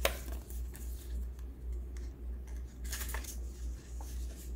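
Paper rustling and crackling as folded paper instruction cards are handled and opened out, with a few short sharp crinkles at the start and again about three and four seconds in.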